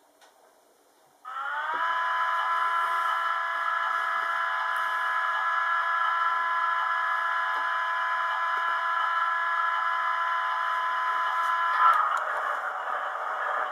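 Hornby Class 60 model's sound decoder playing a recorded Class 60 diesel engine (Mirrlees 8MB275T) through its small speaker: it starts suddenly about a second in with a short rising whine, then settles into a steady idle. Near the end the engine note turns rougher and noisier.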